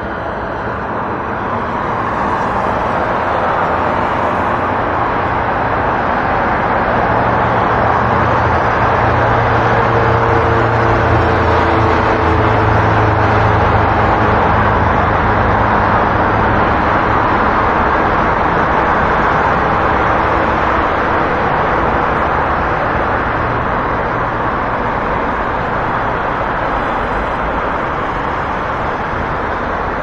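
City street traffic noise: a steady wash of passing cars and engines, swelling a little toward the middle, where a vehicle's low engine hum stands out for several seconds.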